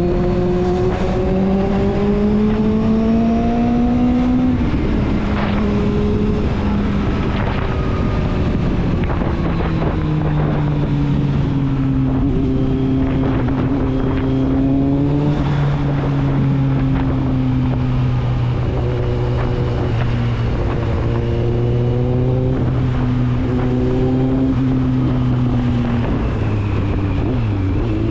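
Kawasaki Z750's inline-four engine and exhaust under way on a ride. The pitch climbs for about four seconds, drops at a gear change, then holds fairly steady with small rises and falls, and drops again near the end.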